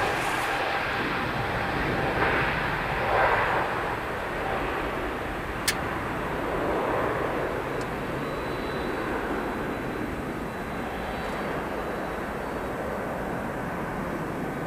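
Boeing 777-300's twin jet engines at takeoff thrust just after liftoff, the engine noise fading steadily as the airliner climbs away. A single sharp click about six seconds in.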